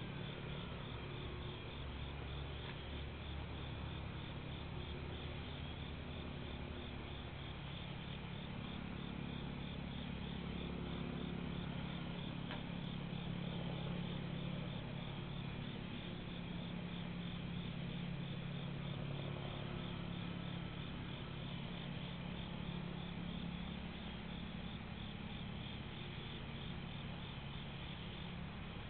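Chorus of night insects chirping in a steady, evenly pulsing drone, with a low steady hum underneath. The sound is thin and band-limited, as picked up by a Ring security camera's microphone.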